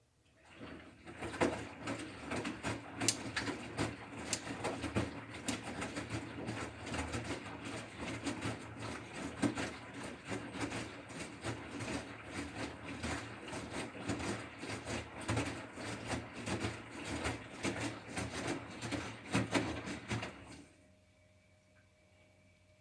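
Bosch Serie 6 front-loading washing machine drum turning, laundry tumbling with a dense, irregular clatter of knocks and rattles that stops abruptly after about 20 s, leaving a faint steady hum.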